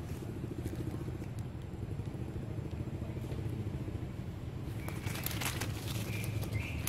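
A steady low rumble throughout. About five seconds in, dry leaf litter starts crackling and rustling as monkeys run across it, and a monkey gives a few short high squeaks near the end.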